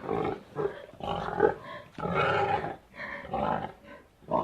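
Pig calling: a quick series of about five loud calls, each half a second to a second long, with short gaps between them.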